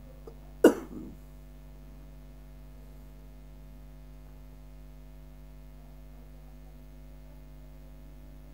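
A steady low electrical hum, with one short, loud, sharp sound less than a second in that dies away quickly.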